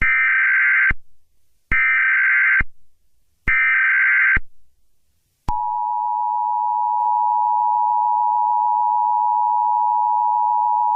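Emergency Alert System alert: three short bursts of the SAME digital header warble, then a steady two-tone EAS attention signal starting about five and a half seconds in.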